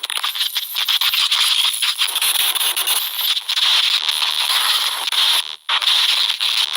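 Loud, harsh crackling static, like a broadcast signal breaking up, with brief cut-outs and one clear gap about five and a half seconds in.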